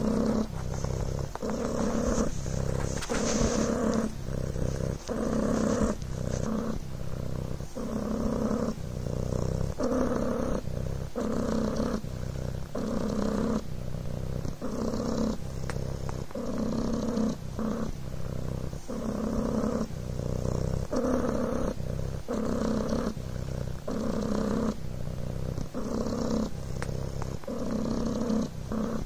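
Devon Rex kitten purring steadily, the purr swelling and dipping in an even rhythm with each breath in and out.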